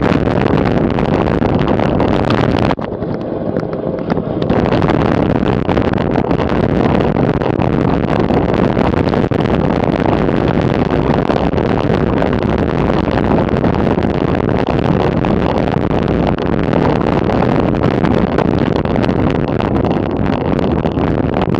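Wind rushing over the microphone of a camera on a bicycle descending fast. The noise is loud and steady, briefly easing and going duller about three seconds in.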